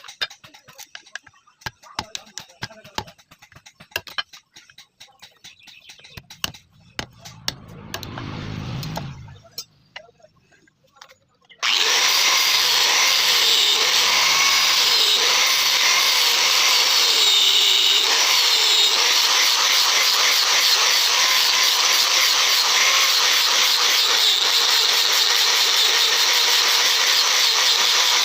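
Scattered light taps and clicks, with a brief low rumble that swells and stops. About twelve seconds in, a power tool starts suddenly on metal and runs loud and steady.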